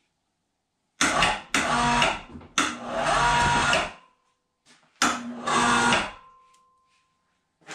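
A small electric motor runs in four short bursts, each starting and stopping abruptly, the third the longest at over a second.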